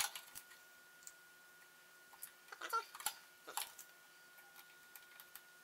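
Light clicks and taps from a printed circuit board and soldering iron being handled on a table during soldering, over a faint steady high tone. A short pitched sound comes about two and a half seconds in.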